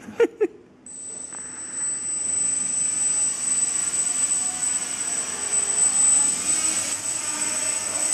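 Quadcopter's four electric motors and propellers spin up about a second in and run steadily while the craft is held up by hand, a whooshing prop wash with a thin, high-pitched whine over it. Two short sharp sounds come just before the spin-up.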